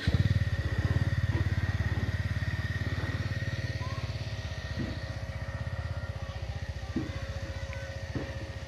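Small motorcycle engine running with a fast, even low putter. It starts abruptly and loud, then slowly fades while still running.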